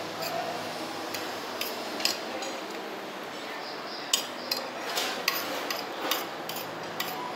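Metal spoon clinking and scraping against a plate: scattered sharp clinks, coming more often from about four seconds in.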